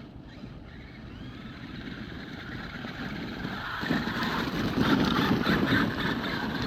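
Traxxas X-Maxx electric RC monster truck driving over icy ground, a rough mix of drivetrain and tyre noise that grows louder and is loudest from about four seconds in.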